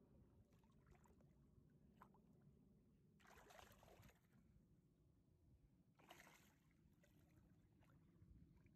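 Near silence, broken by two faint splashes of a hooked catfish thrashing at the water's surface beside the boat, a longer one about three seconds in and a shorter one about six seconds in.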